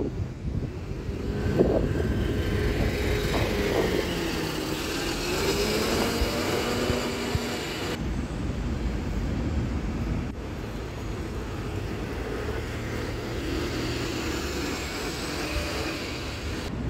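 Diesel double-decker bus engine running as the bus moves off, its pitch rising and falling for several seconds over a steady low rumble, then settling to a steadier, slightly quieter running sound after about eight seconds.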